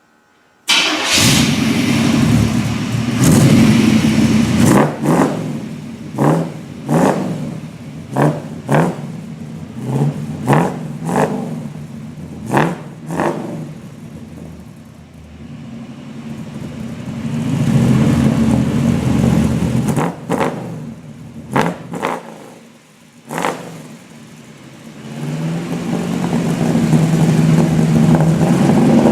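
A 1987 Chevrolet 1500 pickup's engine, breathing through a custom Borla stainless exhaust with tuned tips, starts suddenly about a second in and is revved: a quick string of short blips, a drop back to idle, then a few longer pulls that build toward the end.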